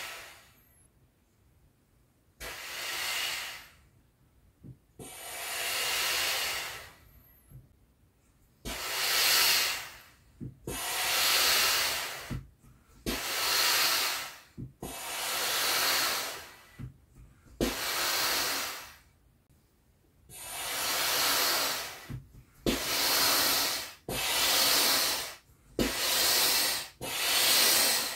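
Hand pump being worked stroke by stroke to inflate an Intex Wave Rider GP500 inflatable jet ski: each stroke is a rush of air, with a light knock at the end of some strokes. The strokes come slowly at first and quicker, about one a second, in the second half.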